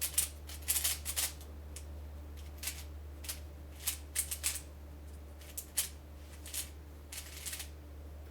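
Plastic 3x3 speedcube being turned by hand: irregular quick clicks and clacks of the layers snapping round, in short flurries.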